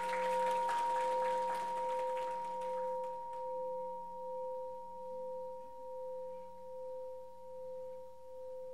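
Buddhist bowl bell ringing on after a single strike, a steady tone that slowly fades and wavers in loudness about once a second. Some faint rustling in the first three seconds.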